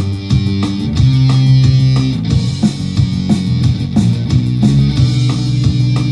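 Punk-rock song played on guitar over bass and drums.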